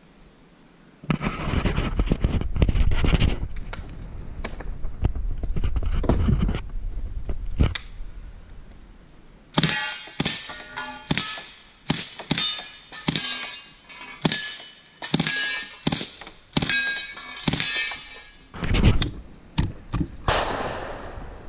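Submachine gun firing at steel targets: about a second in, several seconds of rapid fire. From about ten seconds in come a dozen or so separate sharp shots, each followed by a metallic ring of struck steel.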